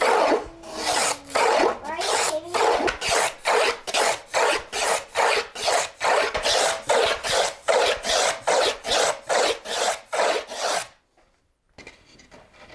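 Small block plane shaving the edge of a quarter-inch drawer-bottom panel in quick back-and-forth strokes, roughly two or three a second, thinning the edge so it will fit its dado. The strokes stop about eleven seconds in, leaving only faint handling sounds.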